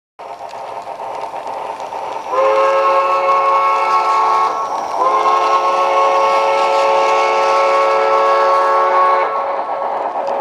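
Sound-equipped model steam locomotive of a Southern Pacific AC-5 sounding its chime steam whistle through its small onboard speaker: two long blasts, the second longer, over a steady hiss of running sound.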